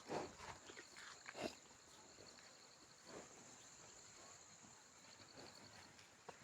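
Insects trilling faintly: a steady high buzz with a pulsing trill above it. Over this come a few soft rustling thuds, two near the start and one about three seconds in.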